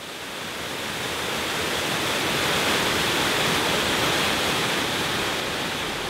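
Waterfall's falling water rushing: a steady, even hiss of water that swells up over the first couple of seconds and then holds.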